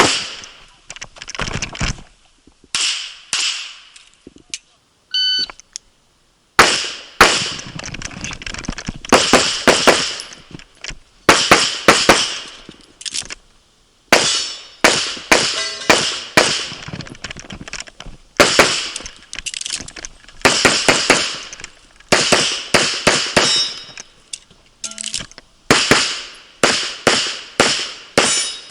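Rapid handgun fire from an IPSC Classic-division pistol: strings of sharp, echoing shots, often in quick pairs, broken by short pauses between groups.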